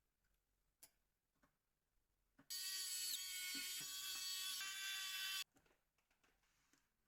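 A small electric motor whirs with a whine of several steady tones for about three seconds, starting and stopping abruptly, after a couple of faint clicks.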